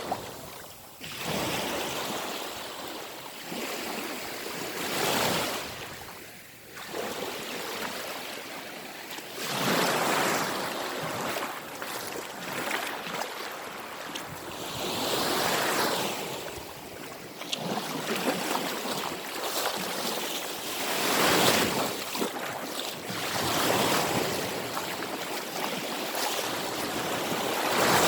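Black Sea waves breaking and washing onto the shore, the surf swelling and falling back about every five seconds.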